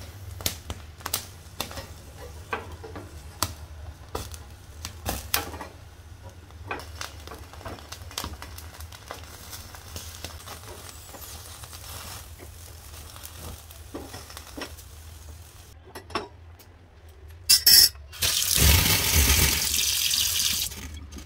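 Boiled corn cob roasting over a gas burner flame on a stainless wire grill rack: a steady low hum of the flame with scattered crackles and pops as the kernels char. Near the end come two sharp knocks, then tap water runs onto the hot steel rack in a sink and hisses loudly for about two seconds, sending up steam.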